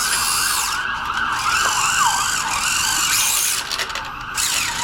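A siren wailing rapidly up and down, about two sweeps a second, which stops about three seconds in.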